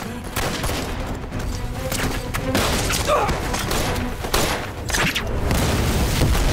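Film battle sound effects: scattered rifle gunfire, many shots coming irregularly, over a low, steady music score.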